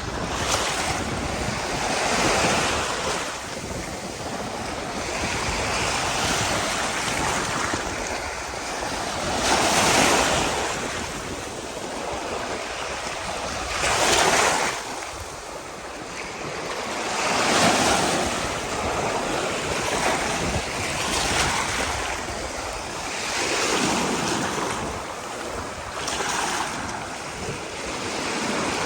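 Ocean waves breaking on a beach: surf swells up and washes back every few seconds, with the strongest breakers about ten and fourteen seconds in. Wind rumbles on the microphone underneath.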